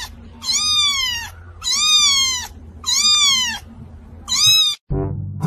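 Very young ginger kitten meowing four times, each call high and loud, under a second long, and sliding down in pitch at the end. Shortly before the end it cuts off and brass music begins.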